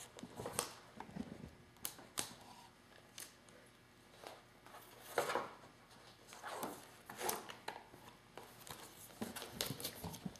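Handling sounds of a sheet of patterned paper rustling and sliding against a clear plastic stamp case as it is pulled out and pushed back in, with scattered light clicks and taps of the plastic.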